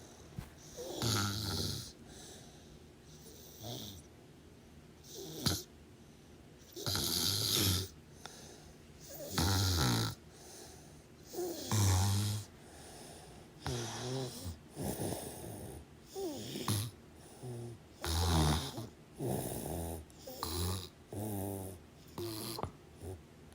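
Snoring: a string of snoring breaths, one every second or two, uneven in spacing and strength, each a low buzz with a breathy hiss.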